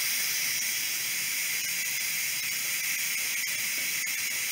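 Electric pressure cooker venting steam through its release valve in a quick release after cooking at high pressure: a steady hiss, strongest in the upper range.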